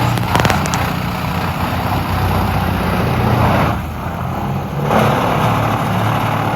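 The engine of a 440-horsepower wood chipper running hard under load, with the steady hum of the engine under a dense rushing noise of wood being chipped. The rushing noise drops away for about a second near the middle, then returns.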